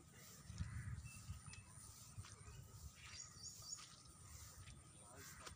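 Quiet ambience with faint bird chirps, including a short run of high chirps about three seconds in, over a low rumble.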